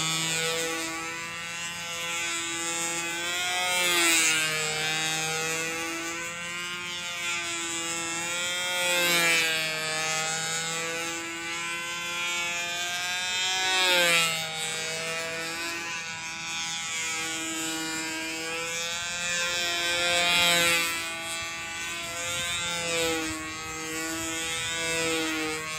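Control-line model airplane's small two-stroke engine running at a steady high-pitched buzz. It grows louder and bends in pitch about every five seconds as the plane comes round past on each lap of the circle.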